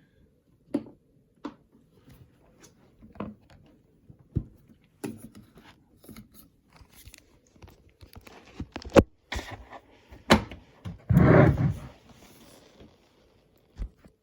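Handling noise: irregular clicks, knocks and light thumps as things are moved about, with a louder rustling scrape about eleven seconds in.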